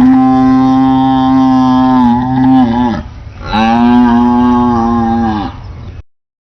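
Buffalo mooing: two long, loud moos with a short pause between, each dropping in pitch as it ends.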